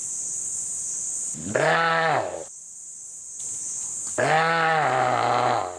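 A deer bleating in distress while being eaten alive by Komodo dragons: two long, wavering calls that rise and then fall in pitch, the second one longer. A steady high hiss runs underneath.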